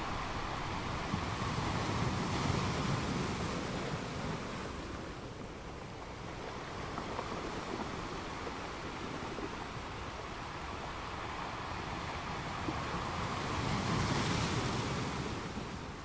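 Small ocean waves breaking and washing over shallow sand at the water's edge. The surge swells about two seconds in and again near the end, with a quieter wash in between.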